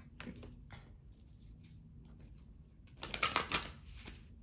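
Tarot cards being handled: a few faint taps, then a short burst of clicking and rustling about three seconds in as a card is laid down on the table.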